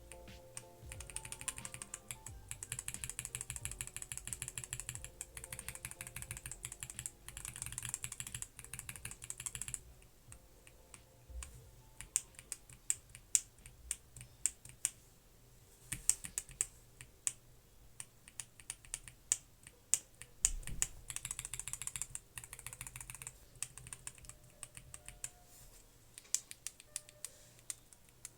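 Typing on a mechanical keyboard fitted with lubed roller linear switches: quick runs of keystrokes in the first third and again past the middle, with single separate key presses between them and toward the end.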